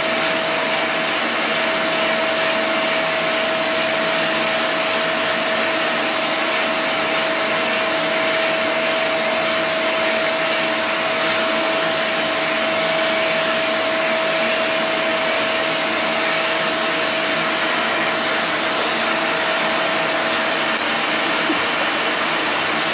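Vacuum cleaner motor running steadily: an even rushing hiss of air with a constant whine over it.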